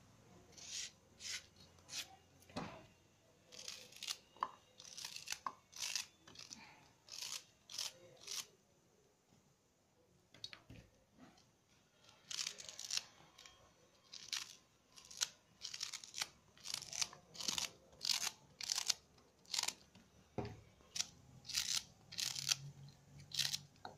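Scissors snipping through fibrous banana stem, one crisp cut after another about every half second to a second, with a pause of a few seconds in the middle.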